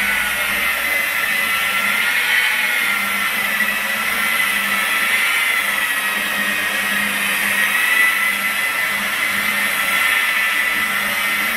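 Corded rotary polisher's electric motor running at its lowest speed with a steady whine, the pitch wavering slightly as the foam pad is worked over car paint to spread a nano-polish primer without heat.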